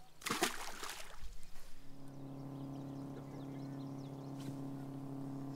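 A short burst of rustling noise in the first second and a half, then a bass boat's bow-mounted electric trolling motor starts up and hums steadily.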